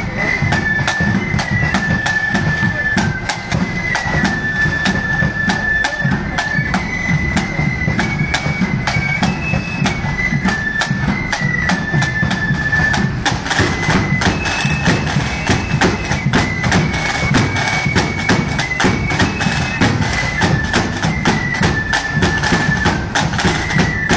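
Marching band playing a tune: a high melody line stepping from note to note over a steady rhythm of drums.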